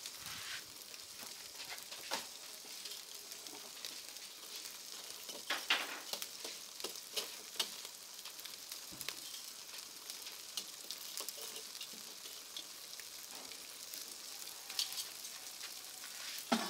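Whole catfish grilling on a wire grate over glowing charcoal in a clay stove, sizzling steadily with scattered sharp crackles and pops. A run of louder pops comes about five to eight seconds in.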